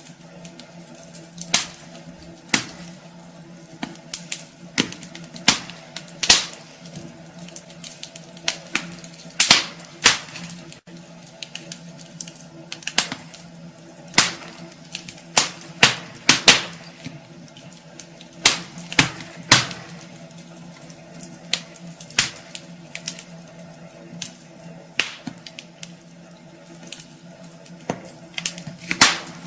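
Wood fire crackling in a fireplace: irregular sharp pops and snaps, a few noticeably louder, over a steady low hum.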